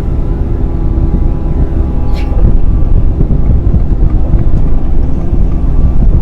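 Excavator's diesel engine running hard and steady while the machine works dirt for grading, with a brief high squeal about two seconds in.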